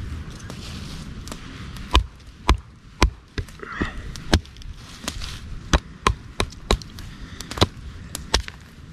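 A wooden baton knocking on the spine of a Topps Tahoma field knife to split firewood. There are about a dozen sharp knocks at an uneven pace, roughly two a second, beginning about two seconds in.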